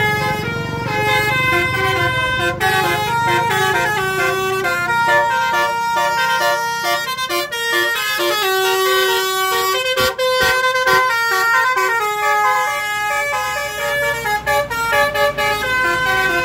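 Indonesian bus 'telolet' musical air horn playing a long tune of quickly changing notes.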